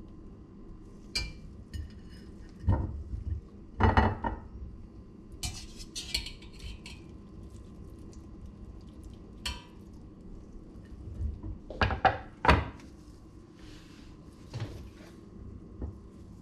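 A metal spoon clinking and scraping against a stainless steel pot while boiled cauliflower florets are lifted out, with knocks as the spoon and florets meet a ceramic plate. The clinks come irregularly, loudest about four seconds in and in a quick cluster around twelve seconds, over a steady low hum.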